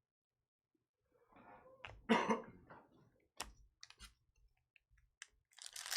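A single cough about two seconds in, followed by a few sharp clicks and then the crinkling of foil baseball-card pack wrappers and cards being handled near the end.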